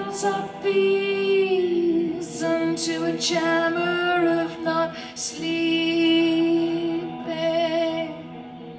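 A woman singing live into a microphone in several long-held phrases with a wavering vibrato, over quiet sustained band accompaniment with violin. The voice stops shortly before the end, leaving the band's soft held notes.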